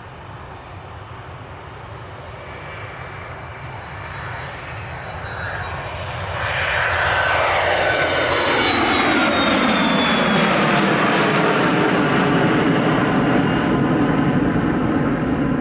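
Dassault Falcon 2000LX business jet's two Pratt & Whitney Canada PW308C turbofans at take-off power during its take-off roll and lift-off. A high fan whine grows louder as the jet approaches, drops in pitch as it passes about seven to eight seconds in, and gives way to a loud steady engine noise as it climbs away.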